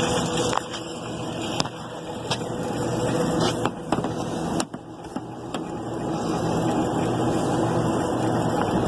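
Steady machine hum of rooftop air-conditioning equipment running, with scattered sharp clicks and knocks.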